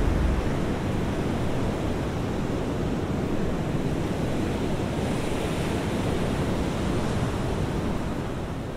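Ocean surf: a steady rushing wash of breaking waves that eases off near the end.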